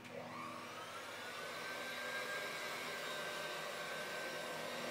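Electric hand mixer switched on, its motor whine rising in pitch as it comes up to speed over the first couple of seconds, then running steadily as the beaters whisk eggs and caster sugar in a glass bowl.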